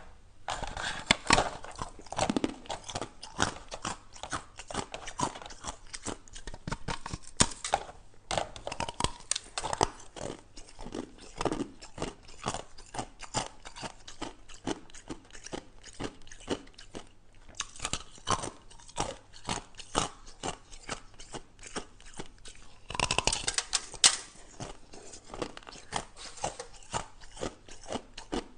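Ice being bitten and crunched between the teeth: a continuous run of sharp, irregular crunches, with a louder burst of crunching about four-fifths of the way through.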